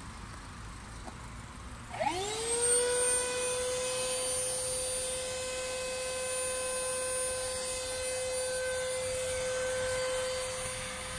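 Electric inflation pump for an inflatable PVC boat switching on about two seconds in. Its motor whine rises quickly and settles into a steady whine as it blows air through the hose into the boat's tube valve.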